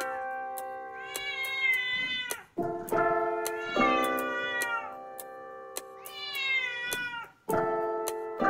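A cat meowing three times, each a drawn-out call of about a second that falls in pitch at the end, over background music with held chords and a light ticking beat.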